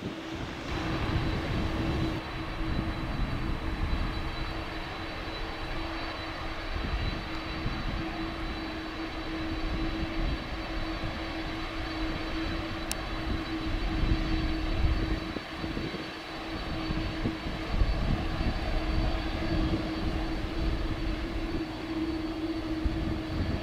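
Jet airliners taxiing at low engine power: a steady rumble and whine of jet engines as a Boeing 787 and then a four-engined Boeing 747-400 roll past.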